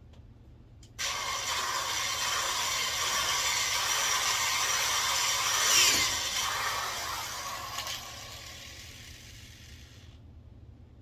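Corded electric drill running as it bores into the wooden enclosure frame. It starts abruptly about a second in, is loudest about six seconds in, then winds down and stops shortly before the end.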